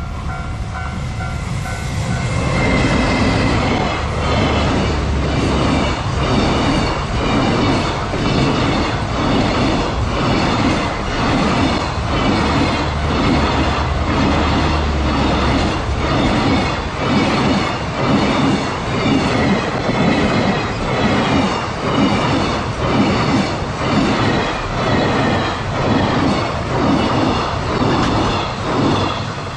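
Level-crossing warning bell ringing, then a long EF210-hauled container freight train passing close by. Its wheels clack over the rail joints in a steady rhythm, about once a second, as the wagons go by.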